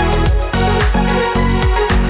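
Background electronic dance music with a steady four-on-the-floor beat, about two kicks a second, under sustained synth notes.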